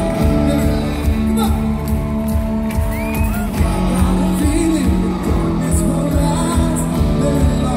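Live worship band with drums, electric guitars, keyboards and piano playing an upbeat song with a steady beat, with singing over it.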